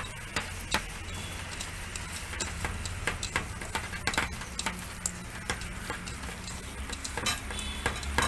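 Irregular light clicks and taps of chicken pieces being mixed with spices and paste in a bowl, over a steady low hum.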